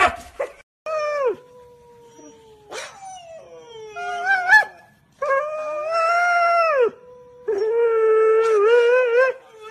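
A couple of short husky barks at the very start, then huskies howling in a series of long, wavering, pitched calls, with two voices overlapping at times and a few short rising yips about four seconds in.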